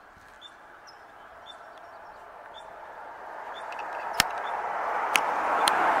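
A small bird chirping about once a second, while the rushing of a passing vehicle grows steadily louder through the second half. Three sharp clicks come near the end.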